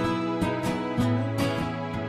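Background music: an instrumental track with plucked guitar over a steady beat.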